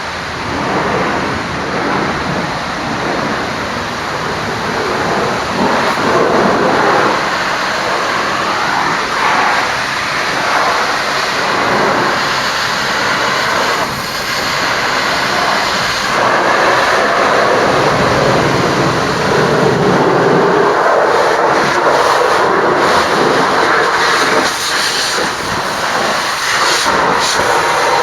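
High-pressure water spray from a truck-wash lance hitting a Scania 114L tractor unit, a steady hissing rush that swells and eases slightly as the spray moves over the truck.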